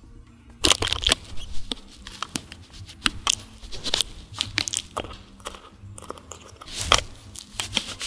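A cat rubbing its face and fur against a handheld microphone's metal mesh grille, heard as irregular scratchy crackling and sharp knocks from about half a second in, loudest at the start and again near the end.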